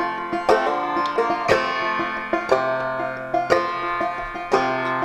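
Solo banjo playing an instrumental introduction: a steady run of plucked notes with a strong accented strike about once a second.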